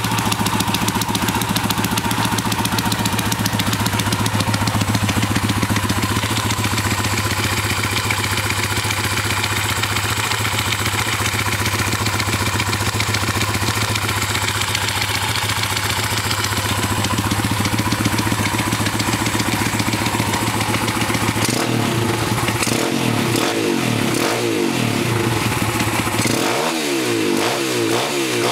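PitsterPro X2 pit bike's single-cylinder four-stroke engine idling steadily, then revved in a series of short throttle blips, its pitch rising and falling, over the last seven seconds. The engine is making a weird noise whose cause the owner does not know.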